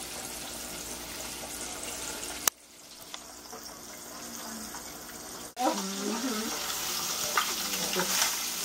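Fish frying in hot oil in an electric deep fryer, a steady hissing sizzle. It cuts off sharply about two and a half seconds in and comes back louder about three seconds later.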